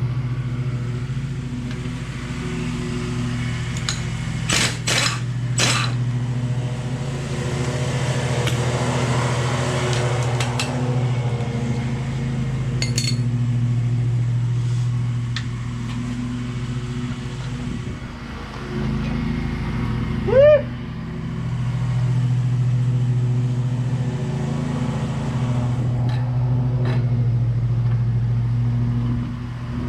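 A steady low mechanical hum with sharp metallic tool clicks, as caster wheel axle bolts are worked loose with an impact wrench and a hand wrench. A short, loud rising whine from a power tool comes about twenty seconds in.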